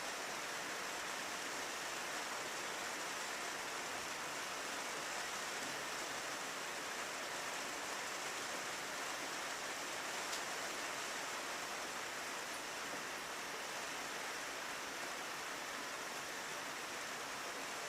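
Steady rain falling on a window, an even hiss that does not let up.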